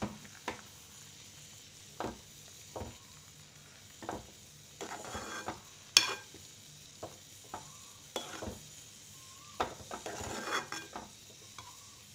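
Metal spoon stirring a thick butter bean and potato curry in a metal pot: scattered scrapes and light taps of the spoon against the pot, with one sharper knock about six seconds in.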